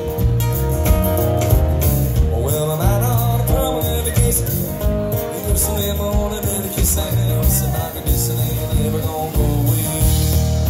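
Live band playing a song: a man singing over strummed acoustic guitar, electric bass and a drum kit.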